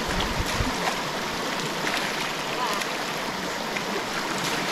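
Shallow river water running and splashing steadily as people wade and scoop water with their hands to wash.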